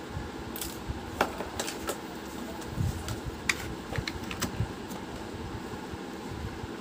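Scattered light clicks and taps from wires and plastic parts being handled, over a steady electrical hum.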